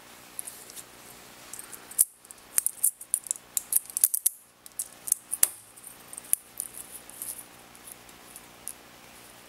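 Flexible 3D-printed PLA bracelet squeezed and flexed in the hand, its plastic segments clicking and rattling lightly and irregularly. The clicks come thickest from about two seconds in to about seven seconds.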